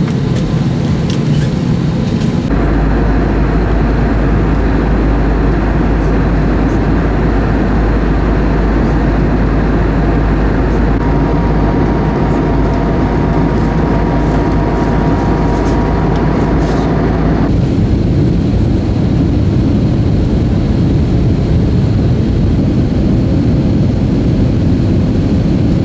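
Steady airliner cabin noise, cut into several shots. From about two and a half seconds in until about seventeen seconds there is a heavier low rumble under the noise; it starts and stops abruptly.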